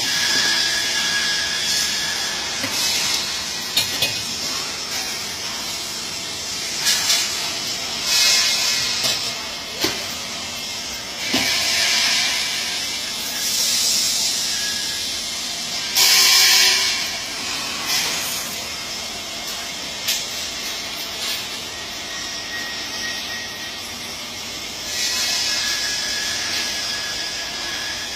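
MIG welding arc hissing and crackling, swelling into louder stretches every few seconds, with a few sharp pops.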